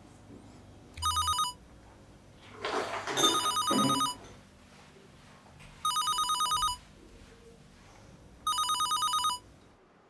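A telephone ringing: a trilling two-tone ring of just under a second, repeating about every two and a half seconds, four rings in all. About three seconds in, a louder scraping rush of noise overlaps the second ring.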